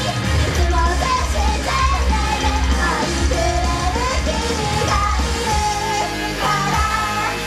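Live idol-group pop performance: female voices singing into microphones over loud amplified music with heavy bass.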